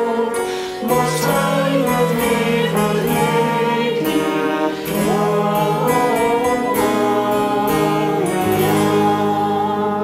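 Slow music of long held notes, a melody line gliding above steady low notes.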